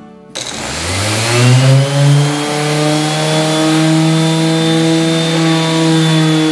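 Electric random orbital sander with a 150-grit disc starting up about half a second in, its whine rising as it spins up and then holding steady. It is sanding the old finish off a thin mahogany veneer.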